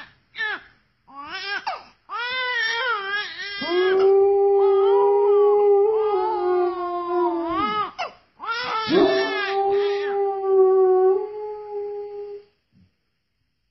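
An infant crying in short wails, then a husky howling in two long, steady howls, the second starting about nine seconds in. The dog is howling in answer to the baby's crying.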